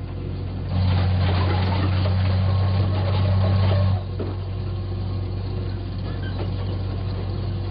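Deep, steady drone of a heavy vehicle's engine tailgating a car. It is loud for about three seconds, then drops suddenly about four seconds in and runs on more quietly.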